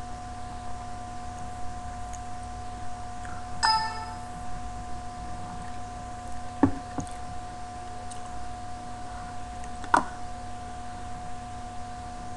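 Steady electrical hum with a thin high whine, the background noise of a desktop recording setup. It is broken by a short ringing tone about four seconds in and by two sharp computer-mouse clicks, one near the middle and one about ten seconds in.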